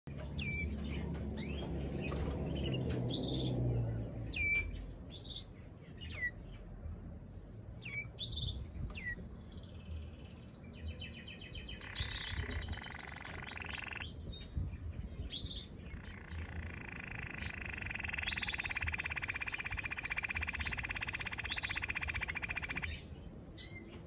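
Male Waterslager canary singing: short separate chirps for the first ten seconds or so, then a fast rolling trill about halfway through and a longer trill lasting some six seconds near the end. A low rumble sits under the first few seconds.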